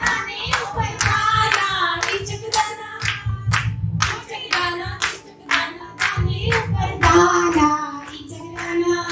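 A group of women singing a song together, clapping in time about twice a second.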